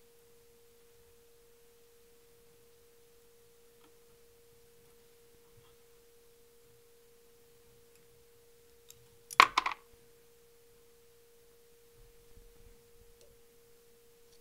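A faint steady tone at one pitch, like an electrical hum, with one brief loud noise about nine seconds in.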